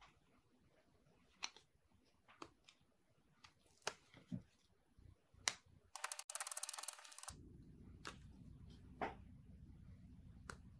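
Faint handling sounds of fingers working paper guide stickers and a glass screen protector: scattered light clicks and taps, with a short burst of rapid crackling lasting about a second, some six seconds in.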